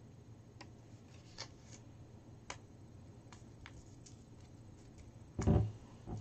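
Paper slips being handled at a desk: faint scattered paper clicks and rustles, then a dull thump about five and a half seconds in.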